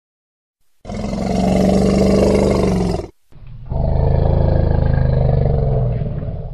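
Two long, loud roars of a large animal, a deep sound effect: the first starting about a second in, the second following after a short gap and sinking in pitch as it fades near the end.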